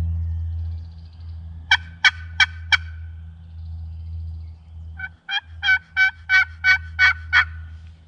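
Turkey yelps from a hunter's turkey call: a run of four loud, evenly spaced yelps, then after a pause a run of about eight, roughly three a second. A steady low rumble sits underneath, strongest in the first second.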